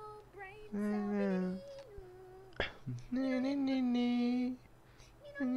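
A voice humming long held notes, three of them with short pauses between, and a sharp click about two and a half seconds in.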